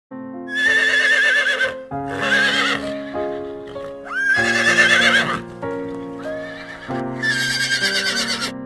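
Horse neighing four times, each whinny about a second long with a quavering pitch, over a simple melody of short steady notes.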